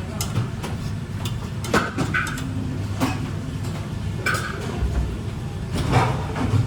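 Dishes and utensils clinking and knocking several times, some hits ringing briefly, over a steady low hum.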